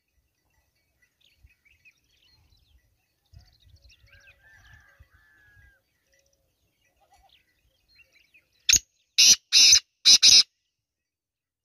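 Male black francolin calling near the end: one short note, then a quick run of four louder, harsh notes, all within about two seconds. The first several seconds hold only faint, scattered background sounds.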